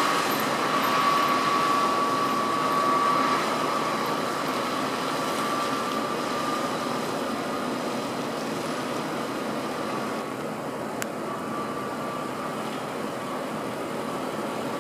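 Snowplough-gritter truck's engine running as it drives slowly away, with a steady high whine over it, gradually getting quieter. A single sharp click about eleven seconds in.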